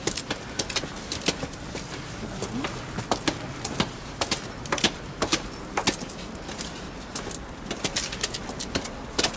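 Footsteps climbing stone steps: several people's shoes striking the stairs about twice a second, as sharp knocks over steady outdoor background noise.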